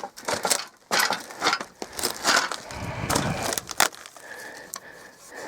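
Irregular knocks, clinks and scraping of loose junk being handled.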